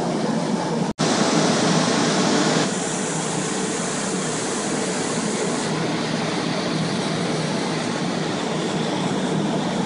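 Steady noise of water-damage drying fans (carpet air movers) running. The sound cuts out for an instant about a second in and is a little quieter after about two and a half seconds.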